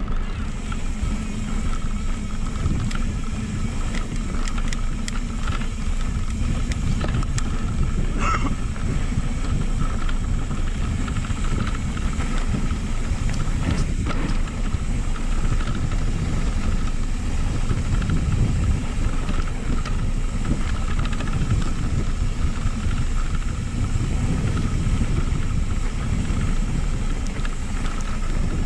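Wind buffeting a bike-mounted microphone over the rumble of knobby mountain bike tyres rolling on a dirt trail, with occasional short clicks and rattles from the bike over bumps.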